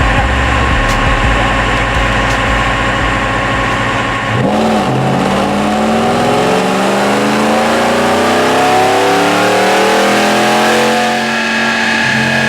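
Car engine revving, its pitch climbing steadily for several seconds and then easing off near the end. Before that, for the first few seconds, a steady sound with heavy deep bass that cuts off suddenly.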